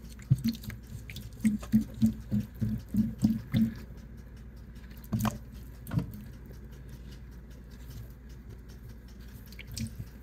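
Grapes being swished and rubbed by hand in a bowl of baking-soda water in a stainless steel sink: a quick run of small splashes and low knocks for the first few seconds, two sharper ones around five and six seconds in, then it goes quieter.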